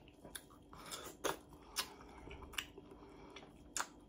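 A person biting and chewing watermelon: a handful of short, sharp, wet crunches and mouth smacks, spaced unevenly.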